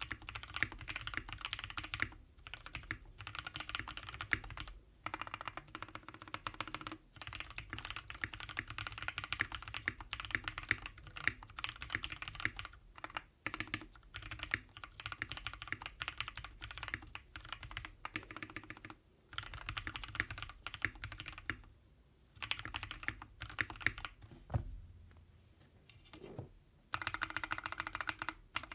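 Steady fast typing on a custom mechanical keyboard: Gateron Yellow linear switches (milky top, lubed with Krytox 205g0 and filmed) in a polycarbonate Klippe R4 case with a polycarbonate plate and PBT keycaps. Rapid keystrokes run with a few short pauses, and a longer lull comes a few seconds before the end, after which the typing resumes.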